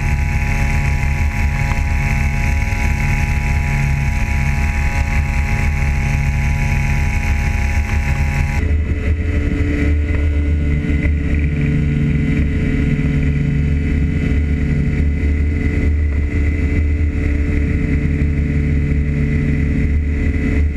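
Radne Raket two-stroke engine on a Mosquito powered hang-glider harness running steadily at high power. Its tone changes abruptly about eight and a half seconds in, then runs on steadily.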